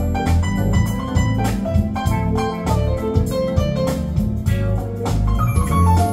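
Smooth jazz played back through a Sonos wireless speaker: keyboard and guitar over a steady bass line and drums.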